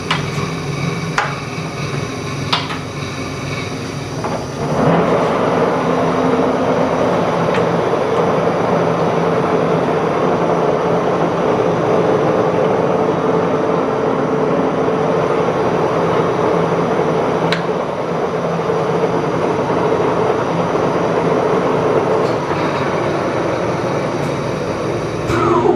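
Monarch engine lathe running under power. There are a couple of sharp clicks early on. About five seconds in, the spindle comes up through its clutch and the lathe runs louder and steady, a mechanical hum with a fixed gear tone, until it changes near the end.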